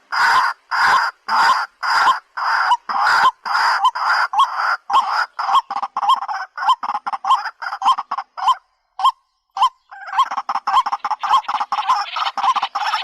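White-breasted waterhen (dak pakhi) calling: a loud, repeated call, about two a second at first and then quicker, with a short pause about nine seconds in before the fast series starts again.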